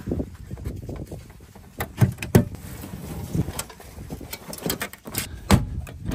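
Aluminium diamond-plate truck toolbox being opened and handled: a string of irregular metal clanks and knocks, the loudest about five and a half seconds in.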